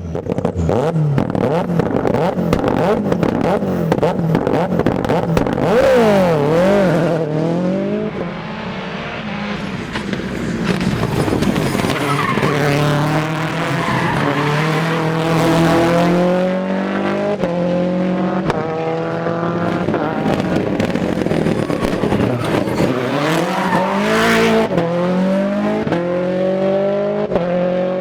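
Toyota Yaris AP4 rally car engine at full stage pace, its pitch climbing and dropping sharply with each gear change, with frequent sharp cracks.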